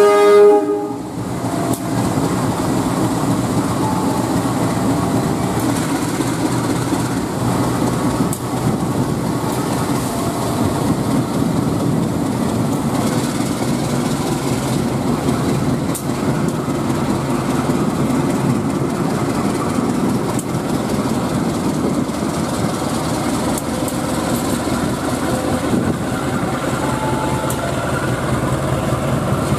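CC201 diesel-electric locomotive running close by as the train rolls past, a steady engine noise. A horn blast cuts off within the first second.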